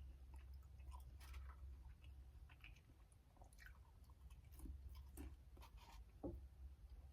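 Faint chewing and mouth sounds of a person eating, scattered soft smacks and clicks, over a steady low hum.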